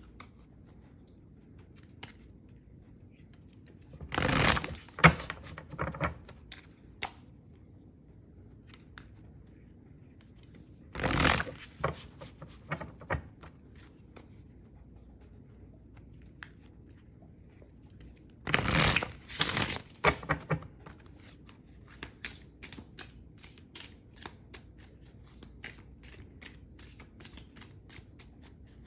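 A deck of tarot cards being shuffled by hand. There are three louder riffling bursts, about 4, 11 and 19 seconds in, and then a quick run of short card snaps near the end.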